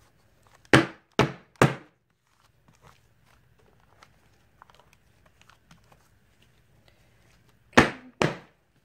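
A paper-lined wooden loaf mold full of freshly poured soap batter knocked down on the tabletop: three thunks in quick succession about a second in, then two more near the end, with faint handling noise between.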